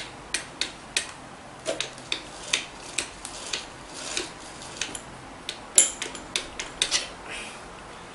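Scattered metallic clicks and clinks from handling the parts of a mixer drill as its chuck is slid into place, the loudest a sharp clack about six seconds in.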